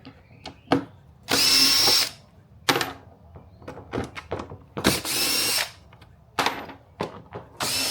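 Cordless drill-driver with a Torx bit backing screws out of the tailgate panel in three short whirring bursts, with small clicks and knocks of the bit and panel between them.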